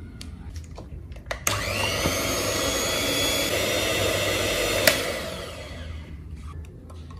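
Small handheld electric mixer switched on with a click about a second and a half in, spinning up and running steadily as it stirs cement slurry in a plastic cup. It clicks off after about three and a half seconds and winds down.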